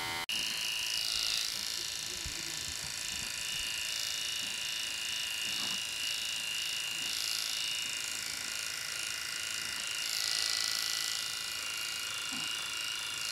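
Electric pet clippers with a 2 mm blade running with a steady high-pitched whine, shaving dense felted mats from a Persian cat's coat.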